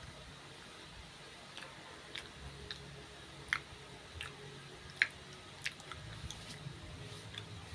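A person chewing and biting a crunchy snack, with about a dozen irregular crisp crunches; the loudest come about three and a half and five seconds in.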